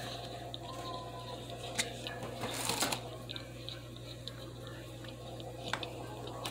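A mouthful of cold cornstarch chewed close to the microphone: soft crunching and squishing with a few sharp mouth clicks, the loudest crunch about two and a half seconds in. A steady low hum runs underneath.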